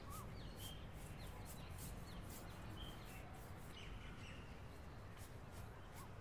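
Faint, scattered bird chirps over a low background hum, with many short soft swishes between them.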